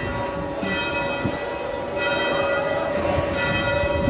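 Church bells ringing, struck again and again, each tone ringing on between strikes.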